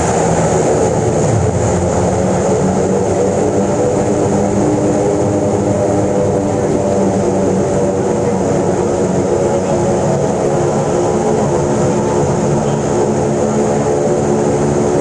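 Cabin noise of a de Havilland Canada DHC-6 Twin Otter's two Pratt & Whitney Canada PT6A turboprops and propellers, a loud steady drone with several humming tones, heard from inside the cabin while the aircraft is on the ground after landing.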